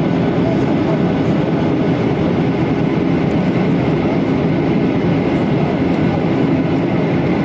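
Steady roar of engine and airflow noise inside the cabin of a Boeing 737-900ER, with faint steady tones above a dense low rumble.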